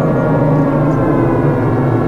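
Civil defense warning siren sounding a loud, steady, multi-toned wail, its pitch sagging only slightly.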